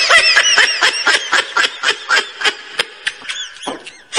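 High-pitched giggling laughter: a quick run of short, rising-and-falling 'hee-hee' bursts that eases off briefly near the end and then comes back loud.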